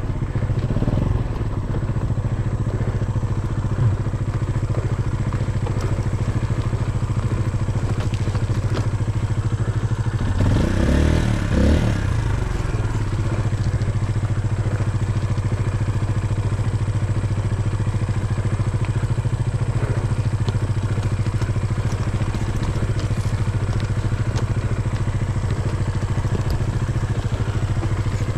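Dirt bike engine running with a steady low note while the bike picks its way down a rocky, rutted trail, with clatter and knocks from the rough ground; a brief louder surge with a knock comes about ten to twelve seconds in.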